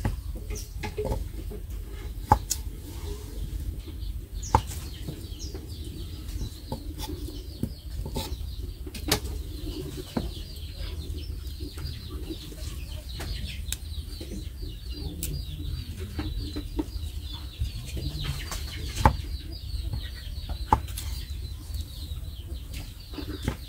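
Irregular sharp taps and knocks of a kitchen knife against a round wooden chopping board as small bananas are peeled and sliced, over a steady low hum. A faint high chirring joins about four seconds in and carries on.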